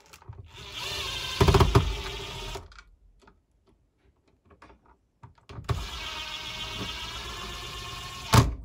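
Cordless drill/driver running twice, about two and three seconds at a time, driving screws into a plastic electrical box. There is louder knocking partway through the first run and a sharp click as the second run stops.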